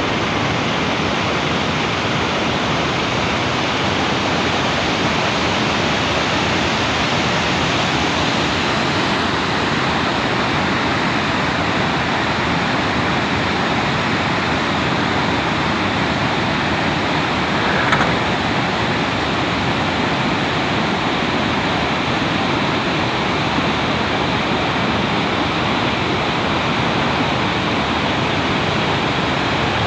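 Mountain river rushing: a loud, steady wash of flowing water, with one brief small click about eighteen seconds in.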